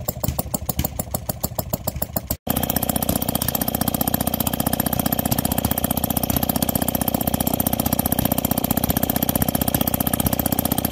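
Small air-cooled single-cylinder engine with a large flywheel running steadily with rapid, even firing. There is a brief break about two and a half seconds in, after which it runs on evenly.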